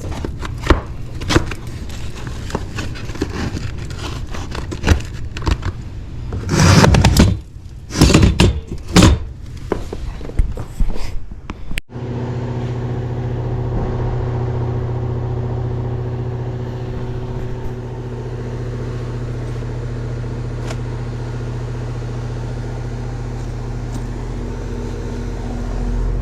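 Knocks and clatter of handling for the first half, then, about halfway through, a steady hum with a low buzz: a Goodman heat pump's outdoor unit running in heating mode.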